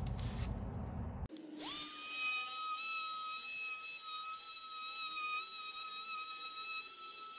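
Oscillating multi-tool starting up about a second and a half in. Its whine rises quickly to a steady high pitch as the blade plunge-cuts into the door jamb. A low rumble comes before it starts.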